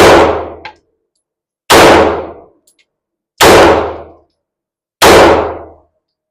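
Beretta PX4 Storm pistol fired four times, evenly spaced about a second and a half apart, each shot ringing out and dying away in under a second. This is a timed string of four shots in eight seconds.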